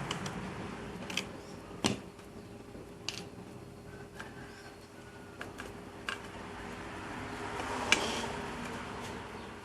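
Several short, sharp clicks and taps of small hard objects being handled, spread across the few seconds, the loudest near the end, over a faint steady hum.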